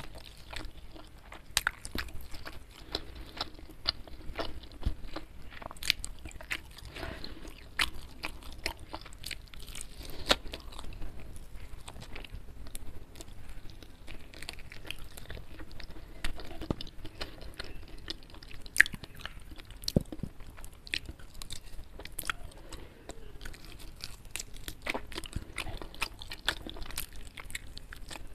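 Close-miked chewing and biting of crispy fried chicken, with many sharp, irregular crunches, several a second.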